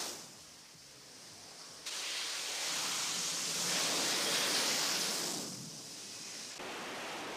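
Jet engine noise from a Harrier jump jet: a broad, loud hiss that cuts in sharply about two seconds in, swells, then eases off near the end.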